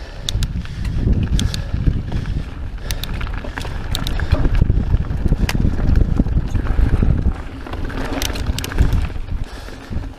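Santa Cruz Megatower mountain bike descending a stony dirt trail at speed: the tyres rumble over the ground and wind rushes across the microphone, with many sharp, irregular clicks and rattles from the bike and loose stones.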